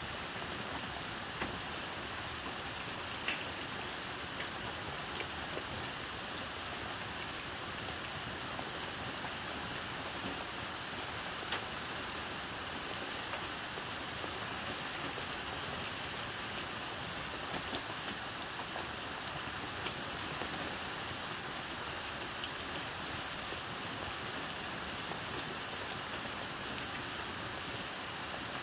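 Heavy rain falling steadily on a camper's roof, heard from inside as an even hiss with an occasional sharper tick of a single drop.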